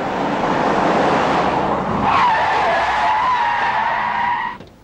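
A car brakes hard in an emergency stop, its tyres skidding on asphalt. A loud sliding noise turns, about two seconds in, into a wavering tyre squeal that holds steady and cuts off as the car comes to a stop near the end.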